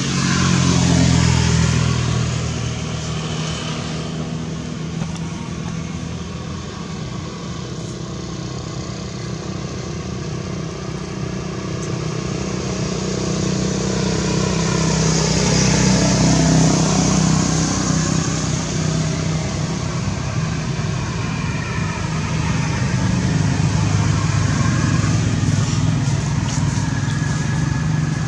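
Road traffic: motor vehicle engines running with a steady low hum, swelling louder about a second in, again midway and again near the end, as vehicles pass.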